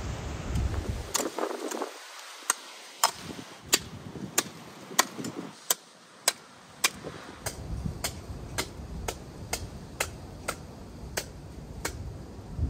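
A heavy knife chopping into a hanging lamb carcass: a run of sharp, regular strikes, about two a second, starting a couple of seconds in.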